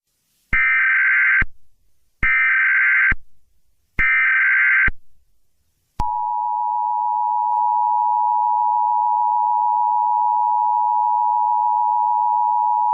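Emergency Alert System broadcast tones: three roughly one-second bursts of the SAME digital header, a screechy warble of data tones, then, about six seconds in, the long steady two-tone EAS attention signal.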